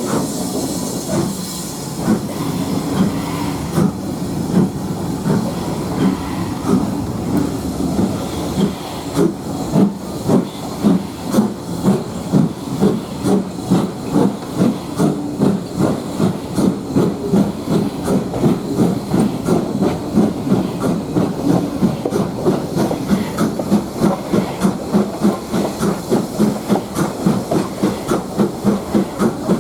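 Exhaust of LMS Ivatt Class 2MT 2-6-2 tank engine No 41313 as it pulls away under steam. A steady hiss gives way to a clear chuff beat that quickens to about three chuffs a second as the train picks up speed.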